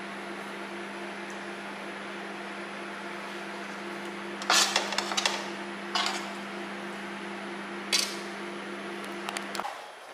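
A kitchen appliance hums steadily, then cuts off suddenly just before the end. Dishes clatter and knock several times over it, loudest about halfway through and again at about six and eight seconds.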